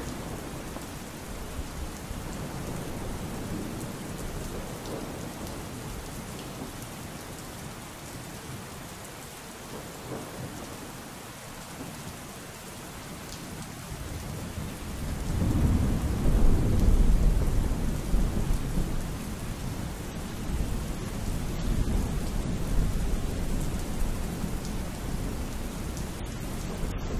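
Steady rain with a long, low roll of thunder that swells about halfway through, peaks a couple of seconds later and keeps rumbling.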